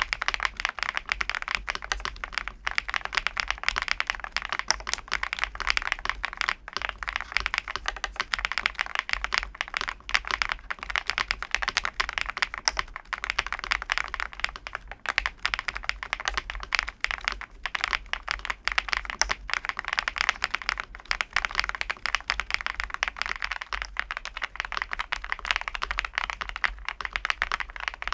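Fast, continuous typing on a MonsGeek M2 V5 VIA mechanical keyboard, a gasket-mounted board in a CNC aluminium case: a dense, unbroken run of key clacks.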